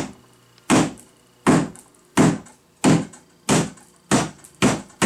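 A painted wooden two-chamber bat house being knocked again and again against a wooden workbench, about nine thuds roughly one every two-thirds of a second. It is being deliberately battered to crack its roof overhang the way a dropped bat house breaks.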